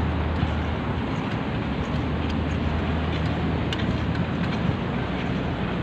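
Steady rumble of wind buffeting a camera microphone carried on a moving bicycle, mixed with road traffic noise.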